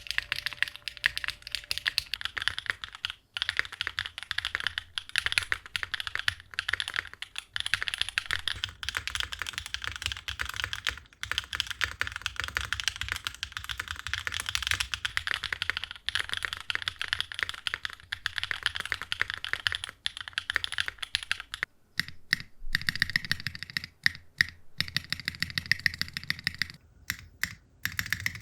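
Mechanical keyboard being typed on quickly, keys clacking in a dense continuous stream with a few brief pauses. After a short break about three quarters of the way through, the keys sound deeper.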